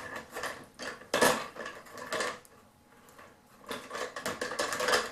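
Metal tool parts clinking and clattering against each other: the old hand drill and its steel auger bits being handled and pushed together, in two bouts of rattling with a short pause between.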